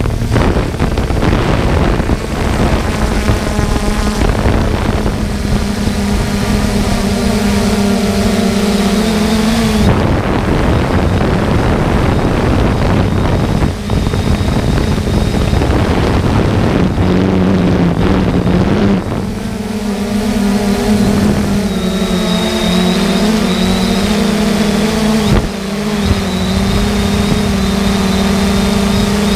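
The motor of the small aircraft carrying the camera, running with a steady hum that shifts slightly in pitch, over wind rushing on the microphone. The hum fades for several seconds in the middle, leaving mostly wind, then returns.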